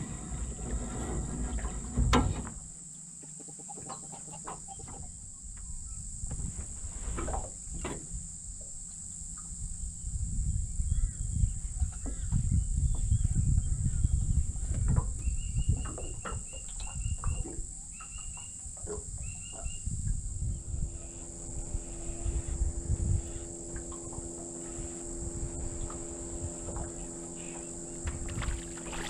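Steady high-pitched insect drone with wind rumble on the microphone and scattered knocks. About halfway through, a bird gives several quick runs of short high calls. From about two-thirds of the way through, a steady low engine hum joins in.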